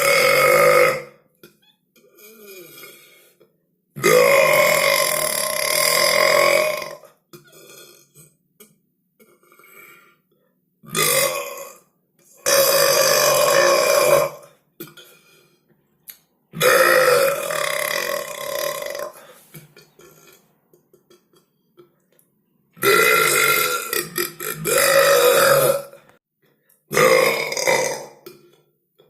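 A string of about seven loud, drawn-out human burps, one after another. Most last two to three seconds, one is short, and a pause of a second or more falls between them.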